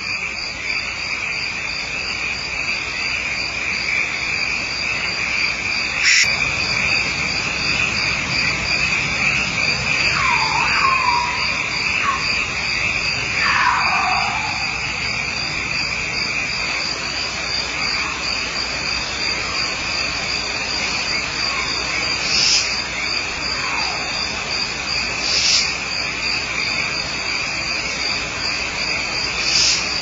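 Steady high chirping of night insects throughout, with a run of falling, cat-like yowls about ten to fourteen seconds in and fainter ones after. Three brief high bursts come in the last eight seconds.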